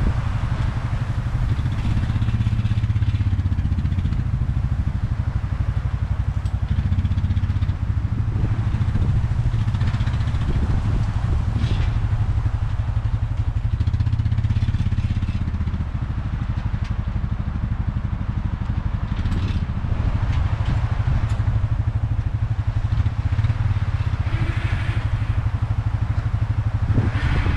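Four-wheeler (ATV) engine running steadily at low speed.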